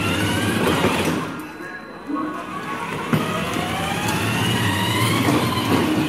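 Electric motors and gearboxes of a battery-powered ride-on toy Jeep whining as it drives, the pitch climbing as it gathers speed. The whine fades about a second and a half in, then starts again about two seconds in and rises steadily.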